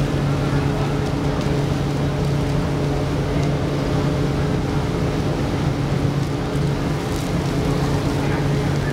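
Ship's engine running with a steady low drone: one constant pitched hum with its overtones over a rumble, unchanging in level.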